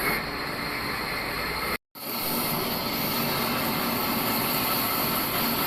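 Old band sawmill running, a steady mechanical noise with a hiss. It cuts out completely for a split second just under two seconds in.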